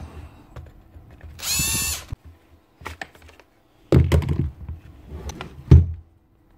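A short whir from a small power tool, about half a second long, about one and a half seconds in. Then knocks and plastic clatter as the drill's handle casing is pulled off and set down, the loudest knocks near the start and end of that stretch.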